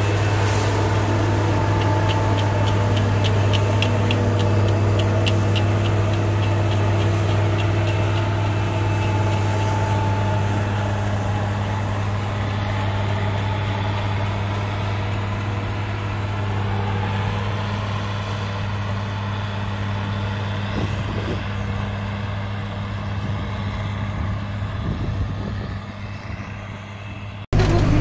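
CLAAS self-propelled forage harvester running steadily under load, chopping maize and blowing it into a trailer: a constant deep engine and chopper drone. A light, rapid ticking runs through the first several seconds.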